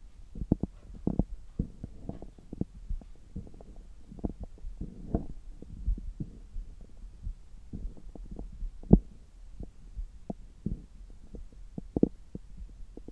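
Stomach and bowel sounds heard through a stethoscope pressed to the belly during a belly massage: irregular short low pops and gurgles over a faint hum, with one sharper knock about nine seconds in.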